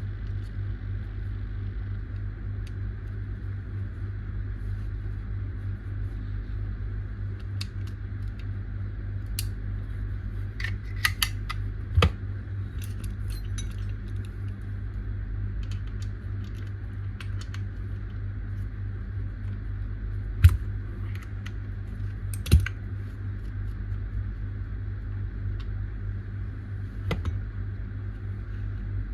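A steady low hum with scattered light clicks and clinks of small hard objects, the sharpest about 12, 20 and 22 seconds in.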